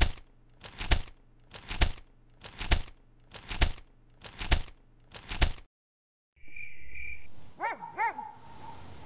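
A series of sharp double knocks, each a light tap followed by a louder one, six times at about one a second. After a short silence comes a brief steady high tone, then two short dog-like barks over a faint night ambience.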